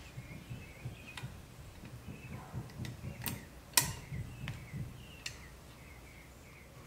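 Small clicks and taps of a powder-coated metal toy truck cab and its grille insert being handled and fitted together by gloved hands, over soft rubbing from the gloves. The sharpest clicks come a little past the middle.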